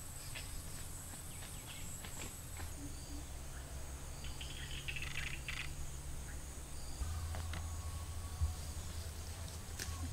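Outdoor ambience of insects trilling steadily in a high-pitched whine, with a few bird chirps about halfway through and a low rumble underneath.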